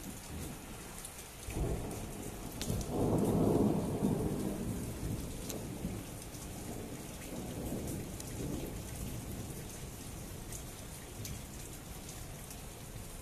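Thunder from a storm passing to the south, a low rumble that swells about a second and a half in, is loudest around three to four seconds, and fades away over the next several seconds. Scattered raindrop ticks and light rain run throughout.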